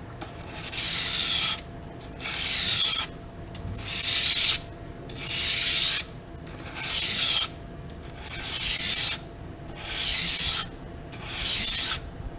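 Knife edge being honed freehand on the Washboard sharpening system's 800-grit abrasive: about eight slow, even rasping strokes, one roughly every second and a half, each about a second long, made with a light touch.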